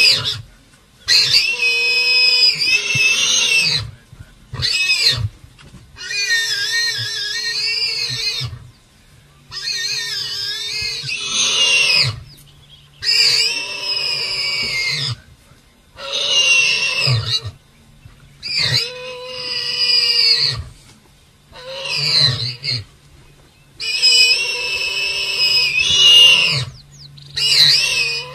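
An animal squealing in distress: about a dozen long, high-pitched wavering calls, each a second or more, with short gaps between them and brief low grunts underneath.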